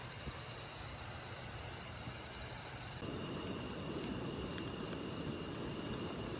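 A summer insect calling in very high-pitched buzzing bursts, three of them about a second apart, stopping about three seconds in; a steady low rushing noise remains afterwards.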